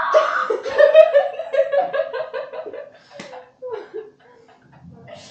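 A young woman laughing hard in a run of quick bursts that dies away about three seconds in, followed by a few softer giggles.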